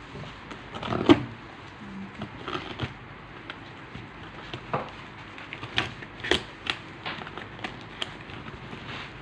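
Packaging being handled by hand while unboxing a replacement phone screen: scattered crackles, rustles and light clicks, the sharpest about a second in and again about six seconds in.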